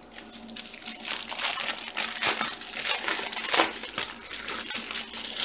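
Clear plastic bag of small diamond-painting drill packets crinkling and rustling in the hands as it is turned over, with dense, irregular crackles throughout.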